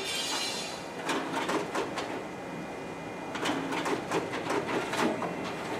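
Ricoh MP C2500 colour multifunction copier running a copy job through its document feeder and stapling finisher: a steady whir, with two clusters of quick clicks and clacks as the paper is handled, about a second in and again from about three and a half seconds.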